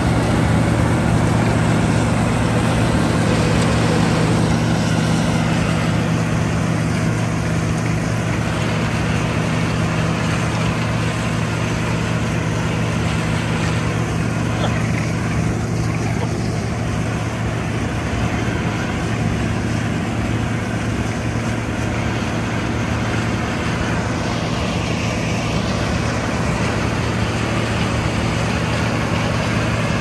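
John Deere 9860 STS combine running steadily while harvesting soybeans: a constant diesel engine hum under the wide noise of the threshing machinery.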